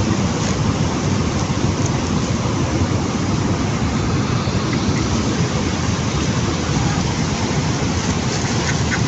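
Waterfall rushing: a steady, loud wash of falling water with a deep rumble underneath.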